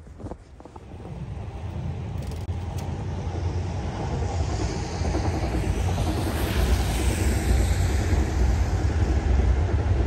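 Electric commuter train running along an elevated viaduct: a steady low rumble that builds from about a second in and stays loud, with a faint high whine rising and falling in the middle.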